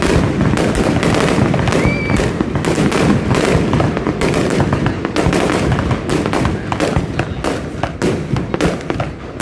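Fireworks display: a dense, continuous barrage of bangs and crackling reports, easing off slightly near the end.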